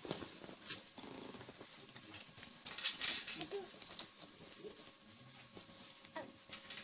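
Hands handling small toys and Play-Doh: scattered light clicks and rustles, busiest about three seconds in.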